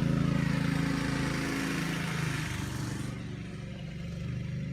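A go-kart's small engine running. It fades and wavers in pitch about halfway through as it moves off, then grows louder again near the end.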